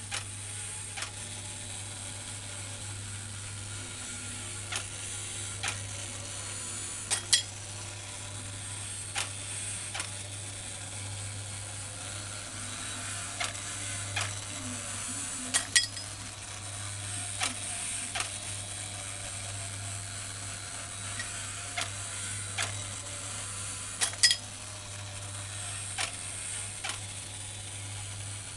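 Battery-operated Piggy Cook tin toy running, its small motor and gears whirring steadily. Sharp clicks from the moving mechanism come every second or few, some in quick pairs.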